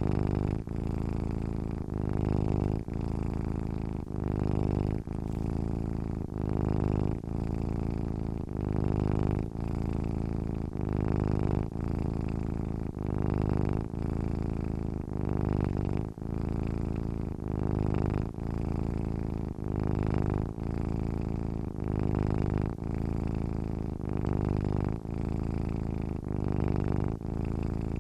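Domestic cat purring steadily as it sleeps, a low buzz that swells and dips with each breath, about once a second.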